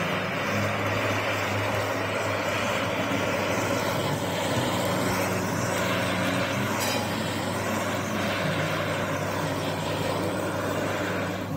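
Handheld kitchen blowtorch burning with a steady hiss, caramelising the sugar sprinkled on the side of a cheesecake slice; it cuts off at the very end.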